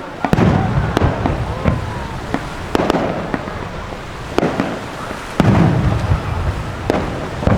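Aerial ball shells from a fireworks display bursting: about six sharp bangs at uneven intervals, each trailed by a low rolling boom.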